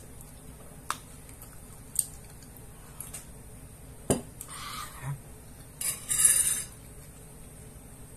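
Metal spoon clinking against a bowl while eating: a few sharp single clinks about a second apart, then a louder scraping noise lasting under a second about six seconds in.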